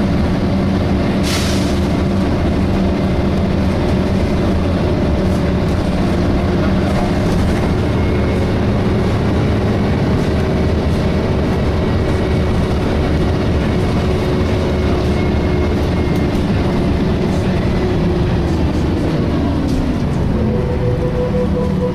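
Interior sound of a DAF SB220 bus under way: its diesel engine and Voith automatic gearbox running, with the steady vacuum-cleaner-like 'hoovering' whine of the engine cooling fan. There is a short hiss about a second in, and the pitch of the running tones falls near the end as the bus eases off.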